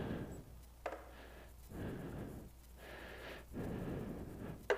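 A person breathing in slow, regular breaths close to the microphone, about three breaths, with a light click about a second in.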